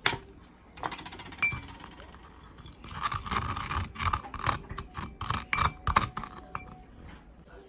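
Kitchen utensil scraping against a bowl: a sharp clink at the start and another about a second and a half in, then a rapid rhythmic run of scraping strokes, about three a second, for some three seconds before it stops.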